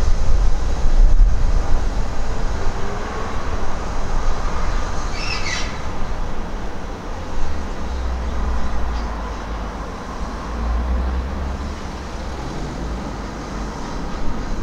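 Merchant Navy class steam locomotive 35028 Clan Line running light engine at low speed, with a low rumble. A brief high squeal about five and a half seconds in.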